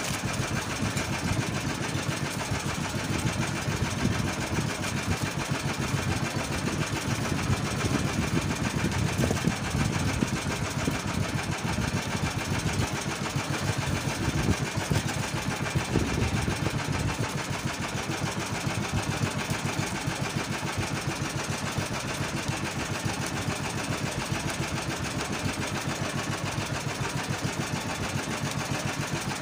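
Small air-cooled engine of a fishing boat running steadily, a fast even putter that does not change speed.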